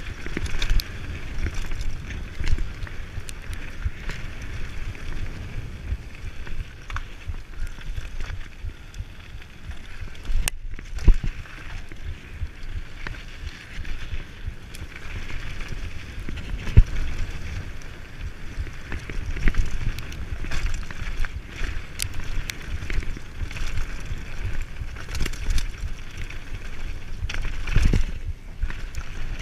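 Mountain bike running fast down a rough dirt and gravel trail: tyres rumbling and crunching over the ground and the bike rattling, with a few sharp knocks from bumps, the loudest about 17 s in. A low rumble of wind buffets the camera's microphone throughout.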